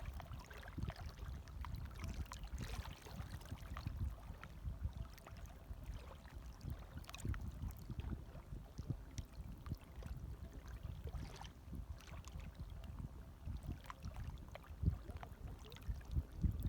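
Gentle small waves lapping, with small splashes and trickles scattered throughout over a steady low wash of water.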